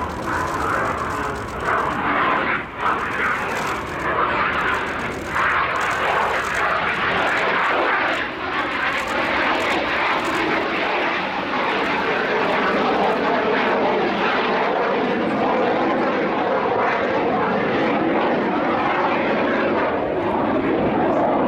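Aermacchi MB-339 jet trainer's Rolls-Royce Viper turbojet running as the aircraft flies past overhead. It is a steady rushing jet noise with a couple of brief dips early on, a little louder and more even in the second half.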